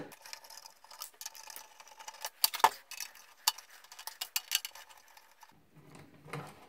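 Screwdriver working small screws out of a DVD receiver's sheet-metal case: a scatter of light metallic clicks and ticks, the sharpest about two and a half seconds in.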